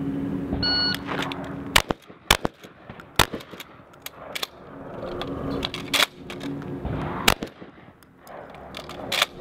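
Remington 870 pump-action shotgun firing six shots at uneven spacing, the first two close together, with a gap of nearly three seconds in the middle.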